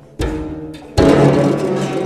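Solo guzheng: a sharp plucked attack about a quarter-second in fades away, then a louder struck chord near one second rings on into a run of notes.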